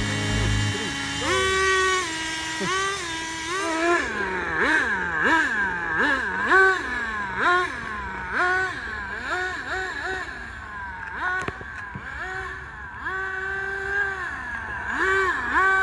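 Small electric RC car's motor whining, its pitch swinging up, holding and dropping again about once a second as the throttle is pulsed.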